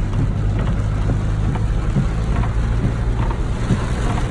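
A vehicle running steadily, a constant low engine hum under an even hiss.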